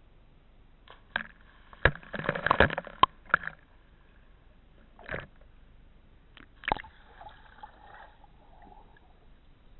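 Water splashing and sloshing in a swimming pool as two people jump in beside a camera at the water line, with a cluster of splashes about two seconds in and a few more later. Near the end the sound turns muffled, heard from underwater.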